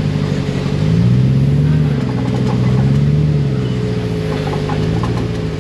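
Engine of a 4WD off-road buggy running under load, its pitch rising and falling as the throttle is worked: it picks up about a second in, drops back, climbs again midway and eases off near the end.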